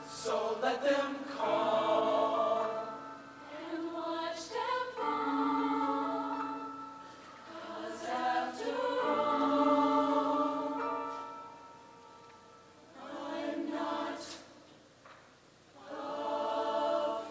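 Mixed-voice show choir singing in harmony: long held chords in phrases a few seconds long that swell and fade, with brief quieter gaps between them.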